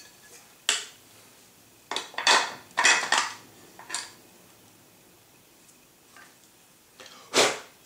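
Sharp metallic clinks and clacks in irregular bursts as shotgun parts and cleaning gear are handled during reassembly, the loudest one near the end.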